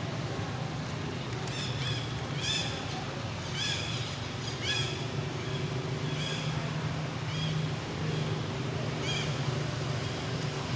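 Baby monkey giving short, high-pitched squealing calls, about seven or eight of them at irregular intervals, over a steady low hum.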